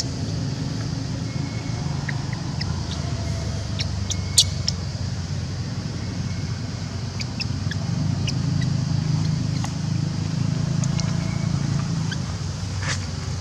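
A steady low engine hum, a little louder from about eight seconds in, with scattered short high chirps and ticks and one sharp click about four seconds in.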